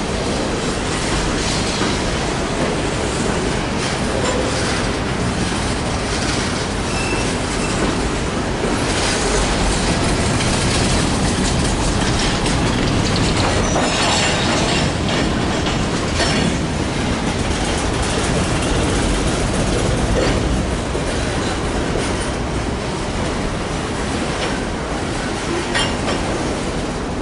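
Empty Norfolk Southern coal cars rolling past close by: a steady rumble of steel wheels on rail, with scattered clicks as the wheels cross the rail joints.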